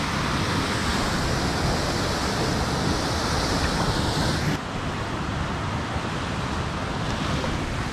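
Steady rush of water pouring over a dam spillway into the river. About halfway through it drops a little in level and loses much of its hiss.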